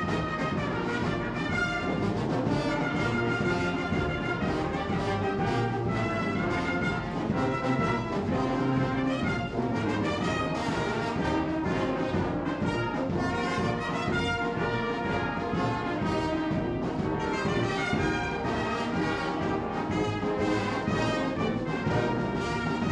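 Brass band of cornets, trumpets and tubas playing a piece together, continuous and steady in level.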